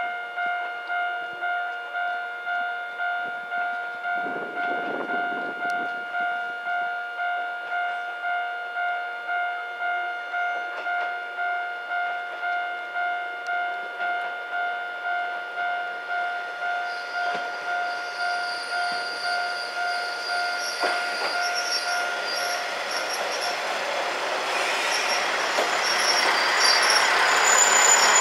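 Japanese level-crossing warning bell ringing steadily, about one and a half strokes a second, which stops about 22 seconds in. Under it the Kishu Railway KR301 diesel railcar comes closer and louder, with high wheel and brake squeal as it slows into the station.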